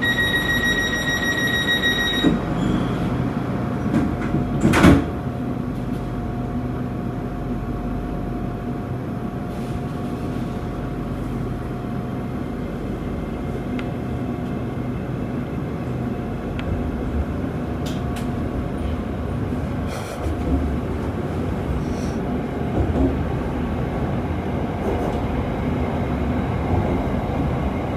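Train running on the rails: a steady rumble with a level mechanical hum. It opens with about two seconds of a high electronic beep, and there is a sharp clank about five seconds in.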